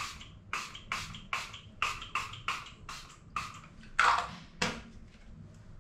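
Pump spray bottle of rose toner misting onto the face: about a dozen short hissing sprays in quick succession. The longest and loudest comes about four seconds in.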